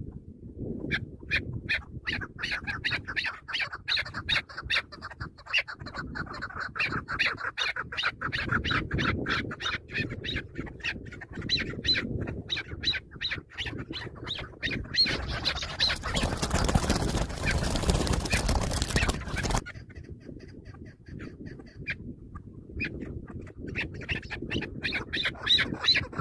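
Chukar partridge calling: a rapid, steady series of short chuck notes, about three a second. In the middle the calls give way to a few seconds of loud rushing noise, then start again near the end.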